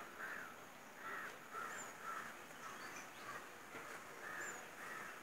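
Faint bird calls in the background: a string of short, repeated calls about twice a second, with a few thin high chirps from other birds.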